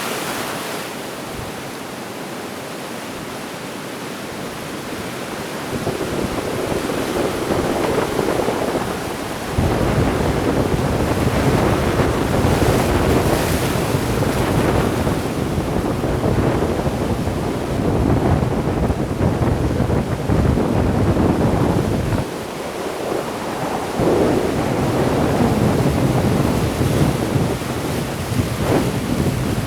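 Sea waves washing onto the shore, with gusting wind buffeting the microphone. The gusts set off a heavy low rumble that comes in suddenly about a third of the way in, drops away briefly and returns.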